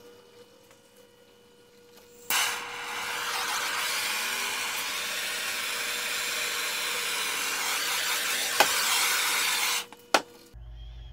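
Handheld propane torch lit suddenly and burning with a steady, loud hiss for about seven seconds, then shut off abruptly. Two sharp clicks come near the end.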